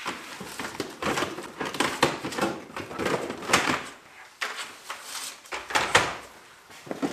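Plastic slot car track sections clattering and knocking against each other as they are handled and lifted out of a box, a quick irregular string of clicks and rattles.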